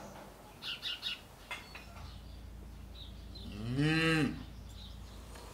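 A cow moos once, a short call that rises and falls in pitch about four seconds in. A few faint bird chirps come just under a second in.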